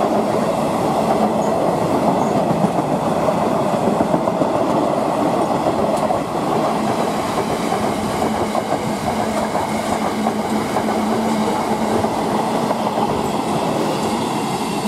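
Container freight train's loaded flat wagons passing close by at speed: the wheels running on the rails make a loud, steady noise throughout.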